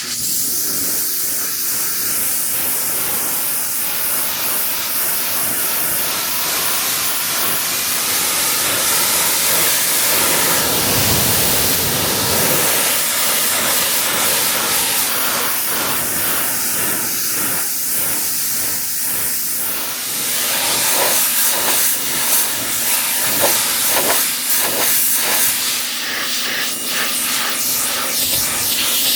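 Pressure washer's high-pressure water jet spraying onto a car, a loud steady hiss that starts abruptly and turns more uneven and spattery in the second half.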